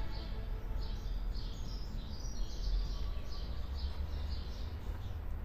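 Outdoor ambience: small birds chirping in short calls, about two a second, over a low steady rumble.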